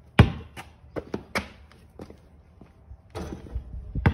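A basketball thudding on an asphalt driveway: one loud bounce about a quarter second in, then several smaller, quicker bounces over the next second, and another knock near the end.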